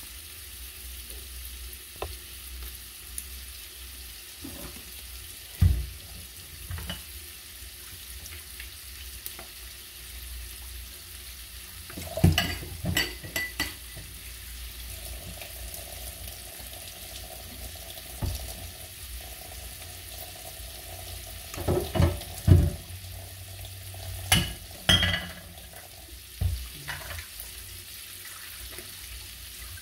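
Chicken pieces searing in butter in a frying pan, a steady sizzle with a handful of sharp cracks standing out, the loudest about halfway and two-thirds of the way through.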